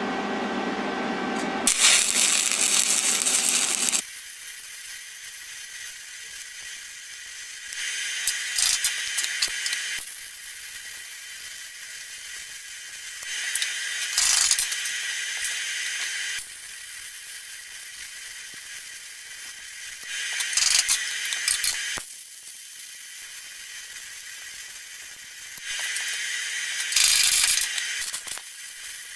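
Shielded metal arc (stick) welding at 88 amps DC electrode positive: the arc crackles and hisses in five short runs of two to three seconds each, one for each backstep weld segment laid down the joint. A faint steady hum sounds in the pauses between them.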